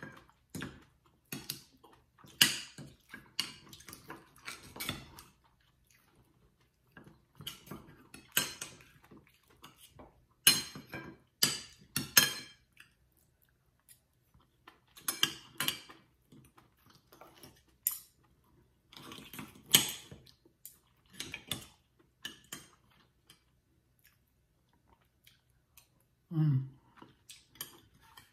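Metal spoon and fork clinking and scraping against a soup bowl in irregular clusters of sharp clinks, with pauses between. Near the end there is a short hummed "mm" from the eater.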